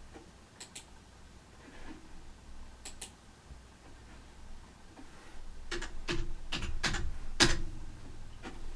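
Clicks of a computer mouse and keyboard keys: two quick pairs of clicks in the first few seconds, then a faster run of louder clicks and taps from about six seconds in, the loudest near the end.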